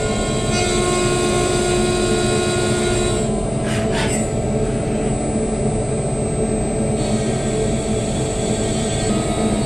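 Dure Vertical 5060 CNC vertical milling machine running while milling a casting: a steady machine noise with a held high whine, and a brief falling sweep in pitch about four seconds in.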